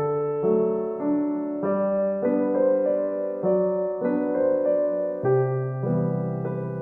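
Background music: a piano-like keyboard playing a steady sequence of held notes and chords, a new one about every half second to a second, each fading before the next.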